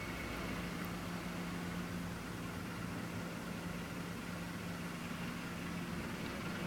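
Steady low hum over a faint even hiss, with no distinct event standing out.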